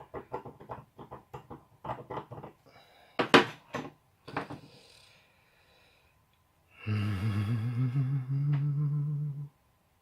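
Rapid scraping and clicking as the old shaver battery is pried at, then two louder knocks. Near the end comes a low hum lasting about two and a half seconds that steps up slightly in pitch.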